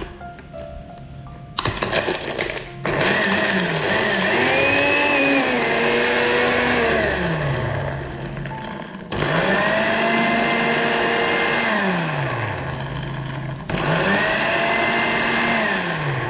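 Countertop blender grinding a raw egg, shell and all, with fish sauce. The motor starts with a short pulse, then runs in three longer bursts, its pitch rising as it spins up and sinking as it slows each time.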